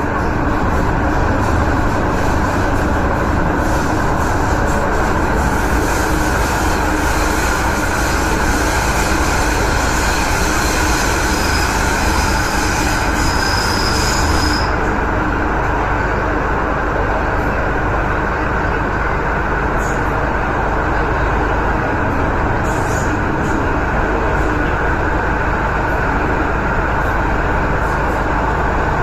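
MTR Tsuen Wan Line M-train running through a tunnel, heard on board: a steady, loud rumble of wheels on track and traction equipment. Midway a thin high wheel squeal builds, then cuts off together with the high hiss about halfway through.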